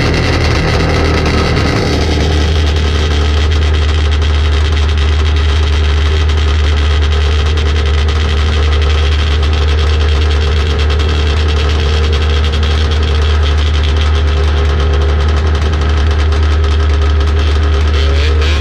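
Vintage two-stroke snowmobile engines idling steadily with a loud, low hum while the sleds wait to start a race.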